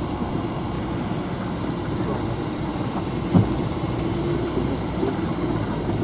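UAZ off-road vehicle's engine running steadily as it drives over a rough track, heard from inside the cabin, with a single knock from a bump about three and a half seconds in.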